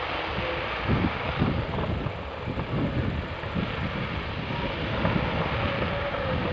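Fireworks display going off in rapid succession: a continuous rumble of overlapping bangs and crackle, with heavier booms about a second in and near the end.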